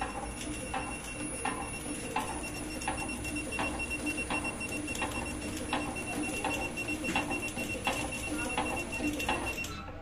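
Film-web packaging machine running, with a regular click about every 0.7 seconds over a steady hum and a high, fast-pulsing electronic tone. The machine stops just before the end.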